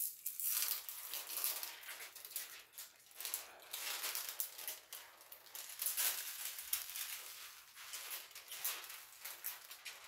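Clear plastic cover film on a diamond painting canvas crinkling and rustling irregularly as it is pressed and smoothed flat by hand.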